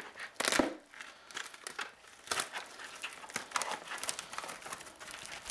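Plastic mailer bag crinkling and rustling as it is handled and cut open with a knife, with irregular crackles and a couple of louder rustles.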